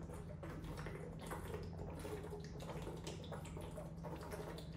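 A man drinking from a plastic bottle in repeated gulps, the liquid gurgling in the bottle and his throat swallowing.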